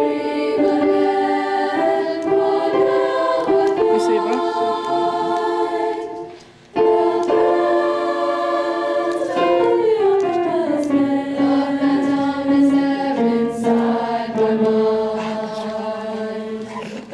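High school choir singing in parts, holding long chords. About six seconds in the voices break off briefly, then come back and slide down together into a lower held chord.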